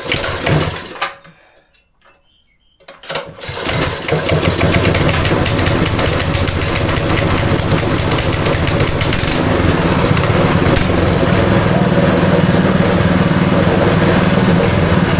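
Honda GX200-clone single-cylinder four-stroke engine being started: a short loud burst fades within about a second and a half, then about three seconds in the engine catches and keeps running steadily. It is freshly filled with oil and fuel.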